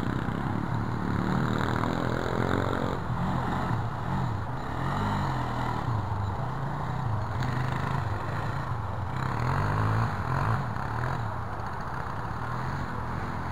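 Off-road engines revving up and down in repeated rises and falls: a Kawasaki KFX400 quad riding the track, and a 110cc pit bike near the end, when the sound gets a little quieter.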